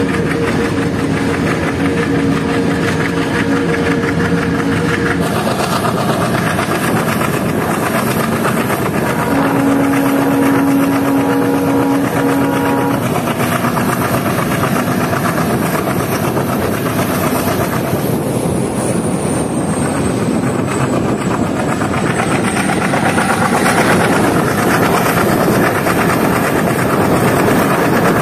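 Passenger train running at speed behind an ALCO WDM-3D diesel locomotive: the loco's diesel engine working hard under the steady rumble of wheels on rail and rushing wind. A few steady tones come and go in the first half.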